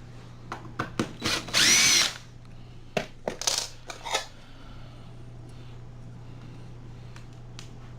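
Power drill spinning briefly, its pitch rising then falling, backing a screw out of old door hardware, with light clicks and taps of metal around it.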